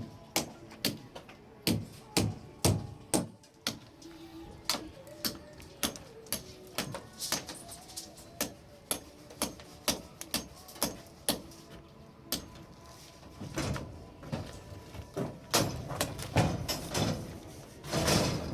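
Hammer blows on a building site, sharp irregular knocks roughly one or two a second, with a denser run of heavier knocks near the end.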